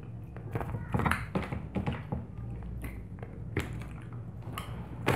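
Fork and spoon tapping and scraping on a plate in irregular clicks as someone eats, with chewing.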